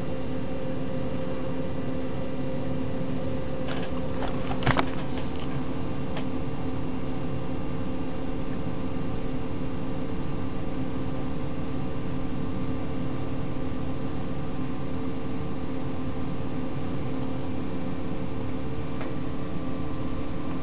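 Steady mechanical hum, even in level throughout, with a few sharp clicks about four to five seconds in.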